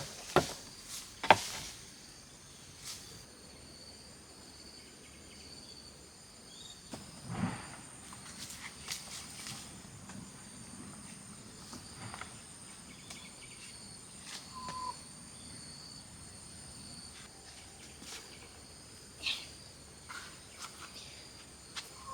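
Steady high-pitched chirring of insects, with a few sharp clicks in the first couple of seconds and scattered soft knocks and rustles after that.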